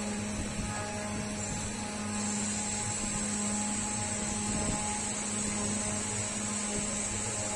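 Steady mechanical hum of a running machine: a constant low tone with a faint high whine above it, unchanging throughout.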